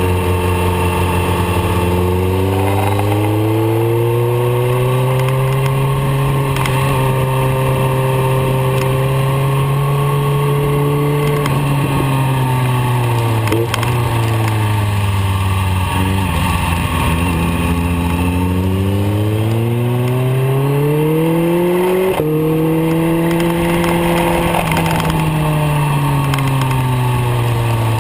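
BMW K1300R inline-four engine heard from the rider's seat, revs climbing and falling as the bike rides through the bends, with a sharp drop in pitch about 22 seconds in like a gear change. A steady rush of wind runs underneath.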